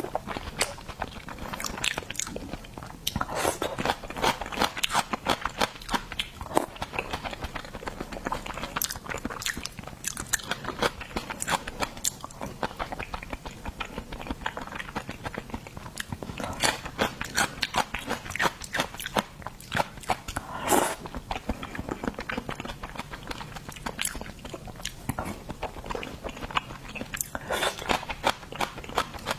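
Close-miked chewing and biting of seafood: wet, irregular mouth clicks and crunches, with a few sharper bites scattered through.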